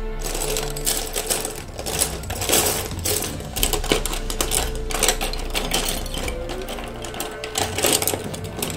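Rustling and clicking as brushes and paper or plastic packaging are handled on a table, in irregular bursts, over steady background music.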